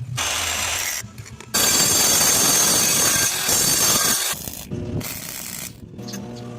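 A circular saw motor humming steadily, then the blade biting into material with a loud, harsh cutting noise: a short cut near the start and a longer one of about two and a half seconds. After that it drops back to the motor's hum.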